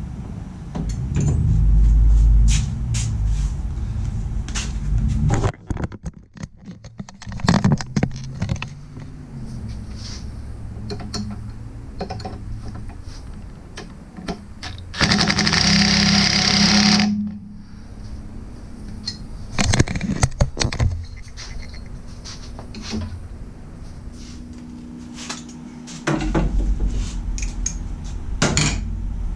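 Impact wrench hammering for about two seconds, snugging a bolt on a Jeep TJ sway bar. Scattered clanks and knocks of tools and metal parts being handled come before and after it.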